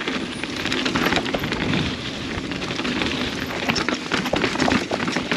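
Mountain bike riding down a dirt trail: tyres rolling over dirt and rock in a steady rough rush, with many quick rattles and knocks from the bike over bumps.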